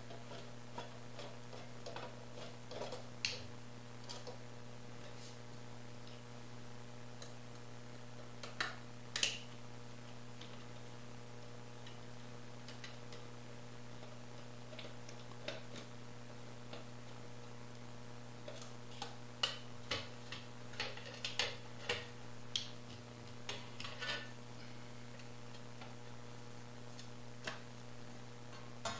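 Scattered light clicks and ticks of a screwdriver working Torx screws out of a Ford EEC-IV engine computer's sheet-metal case, and of the case being handled and opened, coming thicker in the second half. A steady low hum runs underneath.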